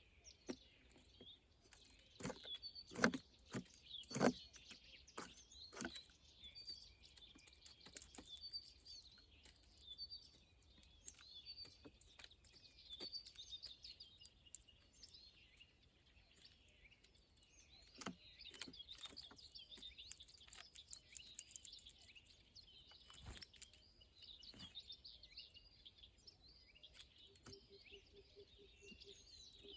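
Small birds chirping and twittering continuously, with scattered sharp clicks and knocks, the loudest a few seconds in.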